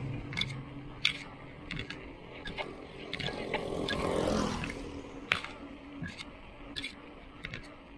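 Bicycle rattling and clicking as it rolls over a concrete road, with a motorbike passing about three to four and a half seconds in.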